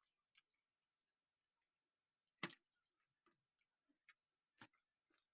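Near silence with four faint, sharp clicks spread across it, the loudest about halfway through.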